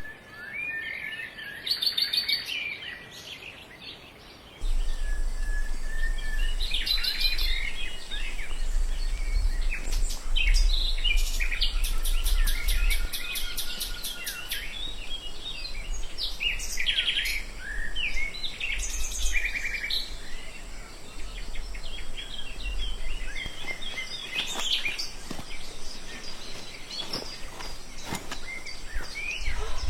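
Several songbirds calling and singing at once, with overlapping chirps, whistles and rapid trills. A low rumble runs underneath from about four seconds in and fades out later on.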